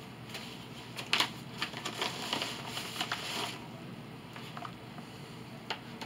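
Yellow padded paper mailer being handled and opened: paper rustling and crinkling. There is a sharp tap about a second in, a longer stretch of rustling from about two to three and a half seconds in, then a few light clicks as a small item is drawn out.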